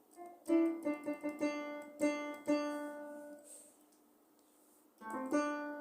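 Yamaha PSR-E473 portable keyboard sounding a short phrase of notes, struck about twice a second, that dies away after a few seconds; a new phrase starts near the end.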